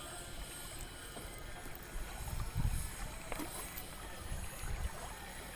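Wind gusting on the microphone in low rumbles, twice, over a steady wash of seawater against shore rocks at high tide.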